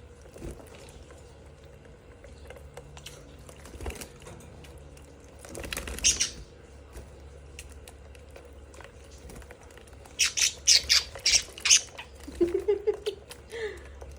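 Budgerigars squawking in harsh bursts: one about six seconds in, then a quick run of about six loud squawks near the end.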